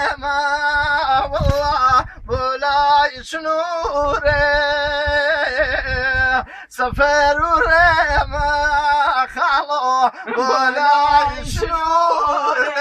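A man singing long, wavering, ornamented notes with short breaks between phrases, over low irregular thuds.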